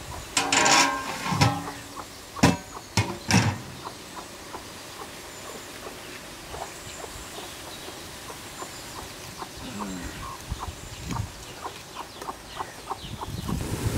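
Metal lid set onto a large metal cooking pot: a ringing scrape about half a second in, then three sharp clanks. Faint scattered ticks follow.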